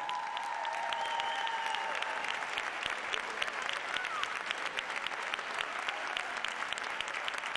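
Audience applauding steadily: dense, fast hand-clapping from a large crowd in a hall.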